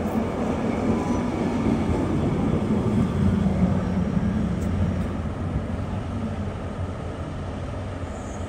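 Low rumble of a passing vehicle, swelling up to a peak a few seconds in and then slowly fading.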